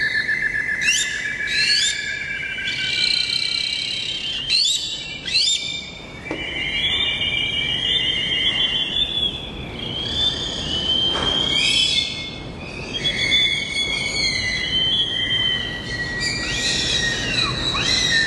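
A chorus of birds calling over one another: warbling trills, whistles and quick falling chirps. The calls are densest near the start and again near the end.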